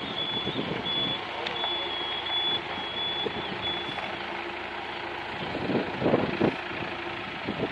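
A truck's reversing alarm beeping at a high pitch, stopping about halfway through, over the steady noise of vehicles outdoors.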